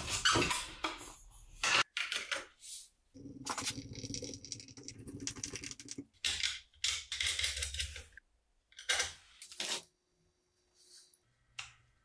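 A run of short workshop handling noises: squeaks, scrapes and clicks, starting with a thin white panel being bent over a bench vise's jaw. A low steady hum runs under them for about three seconds in the middle.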